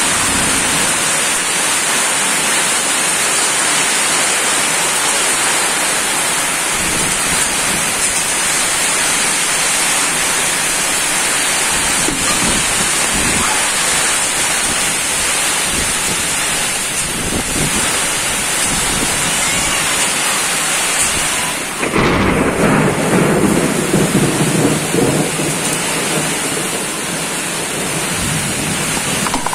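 Heavy rain pouring down in a windy storm, a loud, even hiss throughout. About three-quarters of the way through, a deeper, louder rumble sets in for several seconds.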